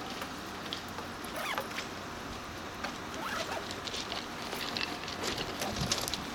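Scattered light clicks and taps, irregular and thickening after about four seconds, over a steady open-air background.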